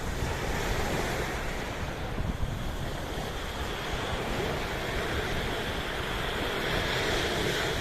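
Sea surf washing steadily, with wind buffeting the microphone as a low rumble.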